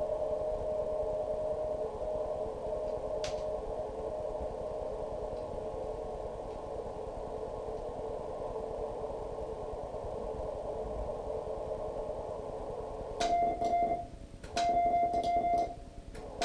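Morse code on an amateur radio transceiver: the other station's CW signal comes through as a faint keyed tone inside the receiver's narrow-filter hiss. About thirteen seconds in, the hiss cuts out and the operator's own louder, slightly higher sidetone takes over, keyed in dots and dashes with sharp clicks.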